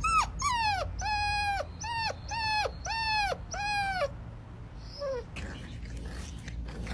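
A dog whining in a run of about seven high-pitched, drawn-out whines, each rising and then falling, with one fainter whine about five seconds in.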